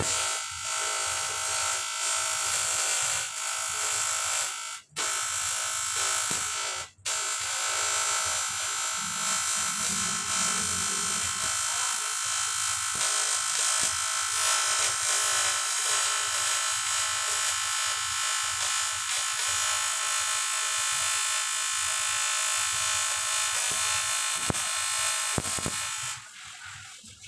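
Electric welding arc buzzing steadily with a high hiss while a cast water jacket is welded. The arc breaks off briefly twice, about five and seven seconds in, and stops shortly before the end.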